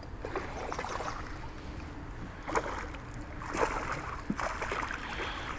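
Hooked smallmouth bass thrashing and splashing at the water's surface beside the boat during the fight. The splashes come in irregular bursts, the sharpest about two and a half and three and a half seconds in.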